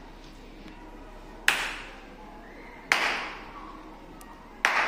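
Three sharp hand claps about a second and a half apart, each followed by a short room echo: the claps that work a sound-activated clap switch to turn a light bulb on.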